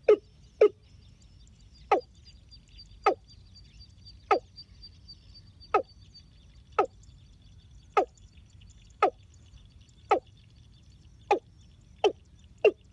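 A ground bird calling: short, sharp notes that sweep downward, repeated about once a second, coming faster near the end. A faint, steady high whine sits behind the first half.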